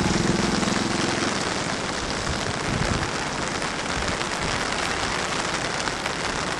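Steady hiss of falling rain. A vehicle engine's hum fades out about a second in.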